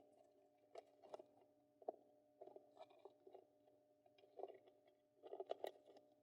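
Faint scattered clicks, taps and light scraping from hands working on a guitar pickup and its plastic riser, with a small cluster of clicks near the end, over a faint steady hum.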